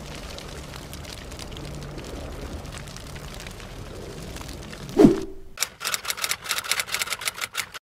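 Logo-intro sound effects: a steady rushing noise, then a single loud hit with a falling low tone about five seconds in, followed by a quick run of sharp clicks, about seven a second, like typing, that cuts off abruptly near the end.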